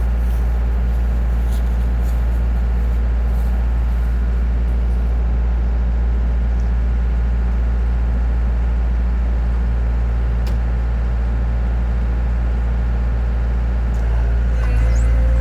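A large engine running steadily with a deep, even hum. About a second before the end it grows a little louder and a thin whine comes in over it.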